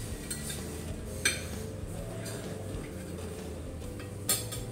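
Metal cutlery clinking against a ceramic plate while eating, with two sharp clinks about three seconds apart over a steady low background hum.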